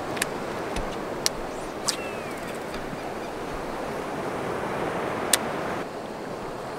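Sea water washing and lapping around a small boat in a steady wash, with four sharp clicks scattered through it.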